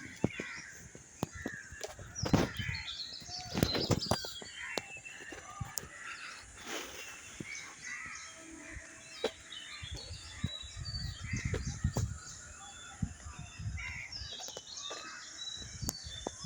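Birds chirping and calling all through, many short overlapping calls, with scattered clicks and a few low rumbles.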